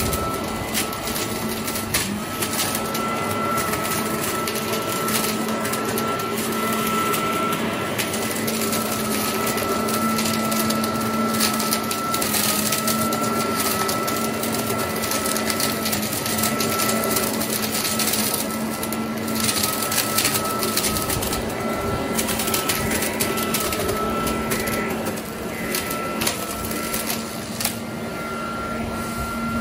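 Parkside PLS 2600 B2 electric leaf blower/vacuum running steadily at full power: a dense rush of air under a steady motor hum and a higher, slightly wavering whine.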